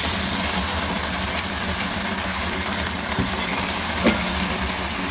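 Minced beef sizzling steadily in a steel pot over a low hum, with a few light clicks as a spatula scrapes a glass bowl of soaked mung beans into the pot.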